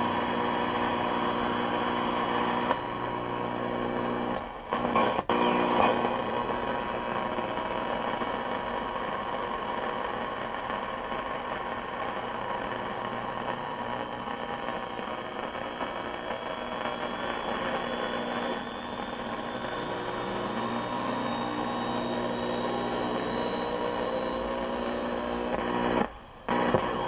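1966 Sylvania tube colour television putting out a steady hiss and buzzing hum with a steady tone. The sound cuts out briefly with clicks twice, about five seconds in and near the end, as the set's controls are turned, and a rising tone slides up shortly before the second cut.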